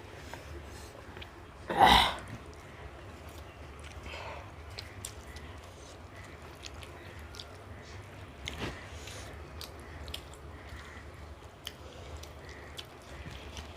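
Close-up eating sounds: chewing with faint scattered mouth clicks. About two seconds in, one short loud throat-clearing.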